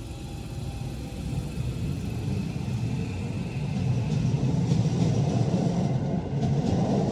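A vehicle's low rumble, building over the first few seconds and then holding steady.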